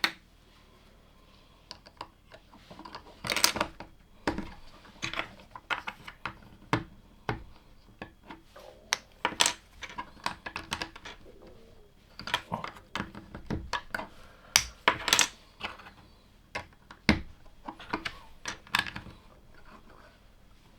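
LEGO plastic pieces being handled and pressed together: irregular sharp clicks and short clattering runs, some closely bunched.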